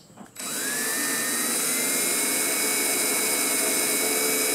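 Cordless drill starting up about half a second in and running steadily as it bores into the head of a steel pop rivet, its motor whine rising briefly and then holding steady. The drilling is slow going because the rivet's mandrel is still in its center.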